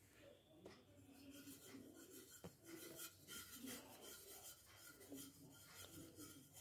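Faint rubbing and scratching of a small paintbrush working paint on a leaf and in a steel paint tray, with one light tap a little over two seconds in.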